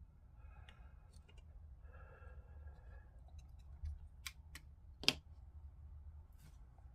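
A few faint small clicks and taps, the sharpest about five seconds in, over a low steady hum.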